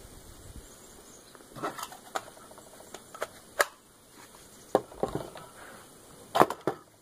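Scattered clicks and knocks as a fiberglass rifle stock with a newly fitted metal bottom metal is handled and turned over, with a louder cluster of knocks near the end.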